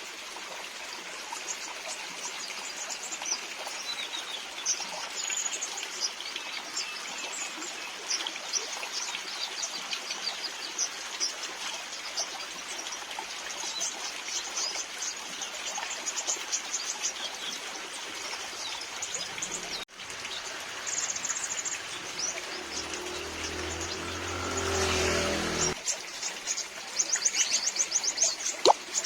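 Sunbirds (kolibri ninja) chirping and twittering in short high notes over steady rain and trickling water, with a fast run of chirps near the end. About three-quarters of the way through, a low rumbling swell rises for a few seconds and stops.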